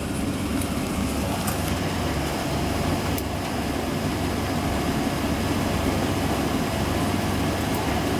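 Steady drone and rush of an airliner cabin's air-conditioning at the gate before pushback, with a low hum and a few faint clicks.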